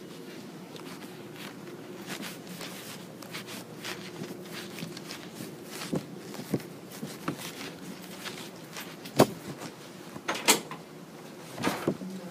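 Quiet indoor room tone with a steady low hum, broken by scattered light knocks and clicks, with two sharper clicks about a second apart in the second half.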